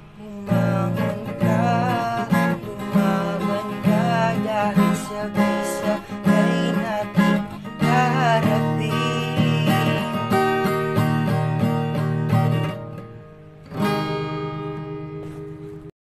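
Acoustic guitar strumming the closing bars of a slow pop ballad, with a wavering melody line over the chords. Near the end a last strummed chord rings and fades, then the sound cuts off suddenly.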